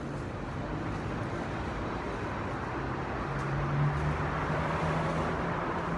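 Steady traffic and road noise, with a vehicle's low engine hum swelling for a couple of seconds in the middle.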